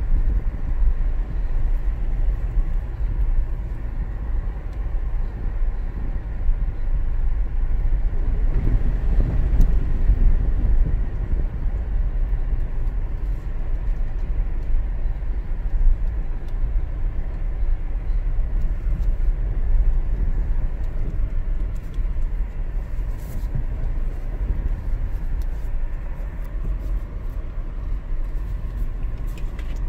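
Cabin sound of a 2019 Toyota 4Runner crawling along a dirt trail: a steady low rumble from its 4.0-litre V6 and tyres on the dirt, briefly louder about nine seconds in. Light ticks and rattles come through in the second half.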